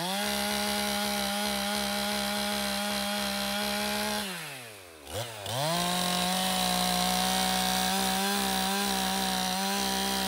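Stihl two-stroke chainsaw revving to full throttle and cutting through the roots of a stump. It drops back toward idle about four seconds in, then revs up again a second or so later and cuts on steadily.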